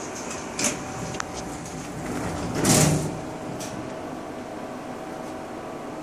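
Steady hum of old elevator machinery, with a few sharp clicks in the first second and a brief, louder rushing noise about halfway through.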